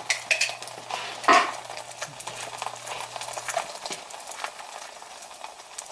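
Beaten eggs sizzling in a very hot frying pan while a utensil clicks and scrapes against the pan, with one louder scrape about a second in.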